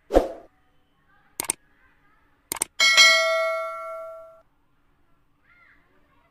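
YouTube subscribe-button sound effect: a soft thump, two quick mouse clicks, then a bell ding that rings and fades over about a second and a half.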